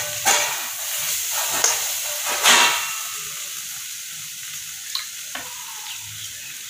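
Spiced banana-stem and mung dal mixture sizzling in oil in a metal kadai, with a flat spatula scraping the pan several times as it is stirred. The sizzle is louder in the first half and settles to a steadier, softer hiss after about three seconds.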